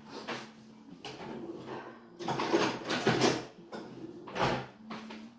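Kitchen handling noise of cookware and utensils being moved about: rattling and scraping in a long spell a little after two seconds in and a shorter one near the end, over a faint steady hum.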